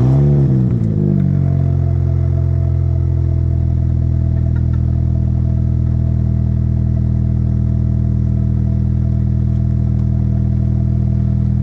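R53 Mini Cooper S's supercharged 1.6-litre four-cylinder engine catching from a start and briefly rising in revs, then settling within about a second and a half into a steady idle. It runs through a new cat-back exhaust that is still being fitted.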